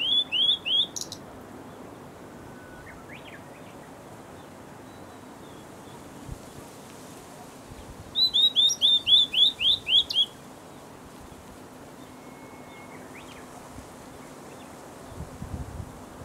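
Blue-and-white flycatcher singing: the tail of one phrase right at the start, then a full phrase of about ten quick, falling whistled notes about eight seconds in, lasting some two seconds, with a few faint thin notes in the quiet gaps.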